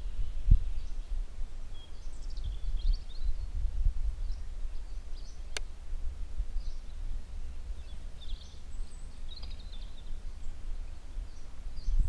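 Outdoor forest ambience: a low, uneven rumble of wind on the microphone, with small birds calling in short chirps and twitters on and off. A single sharp click about five and a half seconds in.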